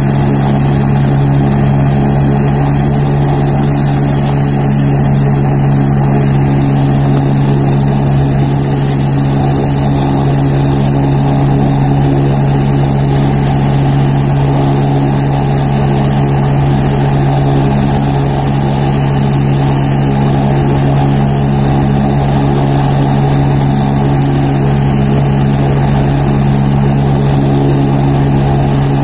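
AgustaWestland turbine helicopter running on the ground with its rotor turning: a steady low rotor and engine drone under a thin high turbine whine that rises slightly about two seconds in, then holds steady.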